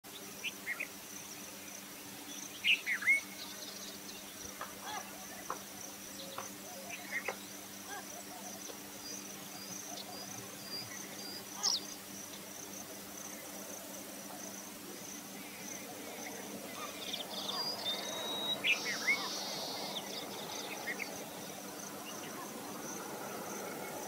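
Steady high-pitched insect trill, with scattered short bird chirps and whistles, a cluster near the start and another about three quarters of the way through. A faint low hum sits underneath.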